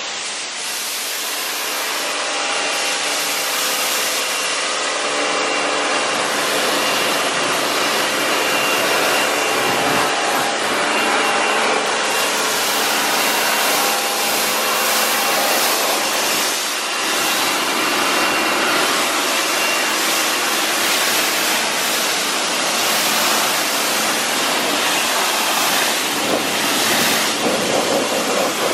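Pressure washer running, its jet of water hissing and spattering against a car's paintwork and glass as it rinses off a spray-on ceramic foam, with a faint steady machine hum underneath.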